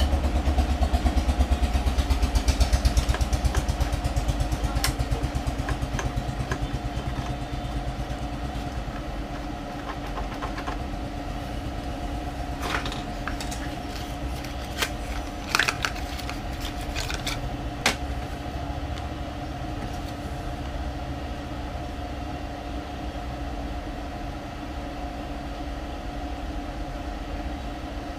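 A steady motor hum, pulsing rapidly and somewhat louder for the first several seconds, then even. About halfway through come a few sharp clicks of small parts being handled.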